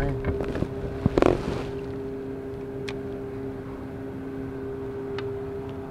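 Steady hum of a distant engine, with a brief knock and rustle of fishing gear being handled about a second in and a few faint clicks later.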